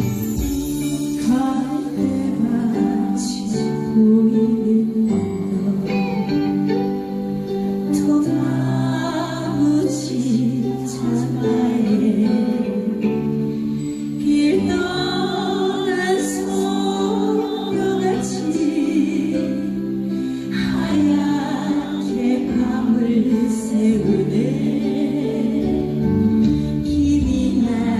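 A woman singing a slow Korean ballad with vibrato over instrumental accompaniment.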